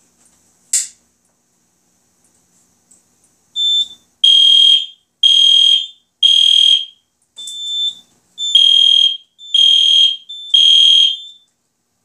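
A short click, then a fire alarm horn sounding loudly in the temporal three-pulse pattern (three half-second beeps, a pause, three more): the alarm signal set off by activating the smoke detector on the addressable panel.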